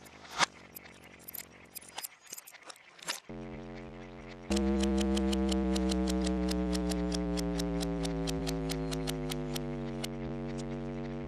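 Many clocks ticking, first unevenly, then in a steady beat of about four ticks a second. About three seconds in an electric hum starts, and a second later it jumps into a loud buzzing drone that slowly sinks in pitch under the ticking: a big guitar amplifier switched on and powering up.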